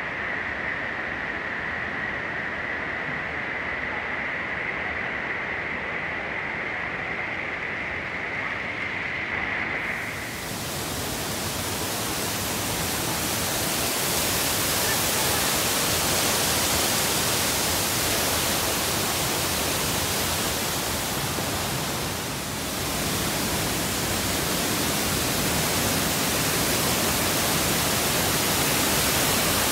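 Waterfall and rocky stream cascade rushing: a steady, even wash of water noise. For about the first ten seconds it is duller, with a steady high whine over it; then it suddenly turns brighter and fuller, with a short dip about two-thirds of the way through.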